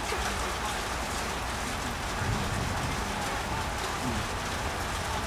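Steady rain falling: an even hiss.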